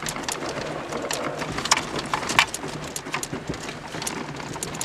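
Irregular clicks and knocks over a steady rumble inside a car's cabin as it rolls with its engine dead, with two sharper knocks about two seconds in.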